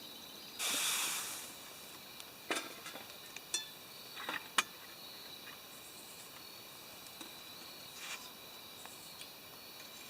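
Insects trilling steadily in the woods, with a short rush of noise about a second in and a few sharp clicks a couple of seconds later.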